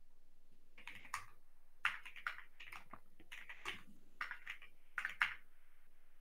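Faint typing on a computer keyboard: about a dozen uneven keystrokes, some in quick pairs.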